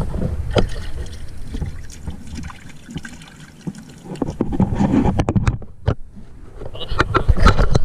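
Water splashing as hands wash and stir in a boat's water-filled fish well, with scattered knocks and clatter against the metal hull, several close together near the end.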